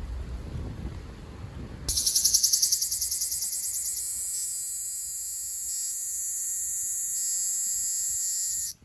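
Male Ryukyu large brown cicada (Graptopsaltria bimaculata) singing: a loud, high, harsh buzz starts suddenly about two seconds in, pulsing quickly at first, then holds steady and cuts off abruptly near the end. Before the song there is low wind noise on the microphone.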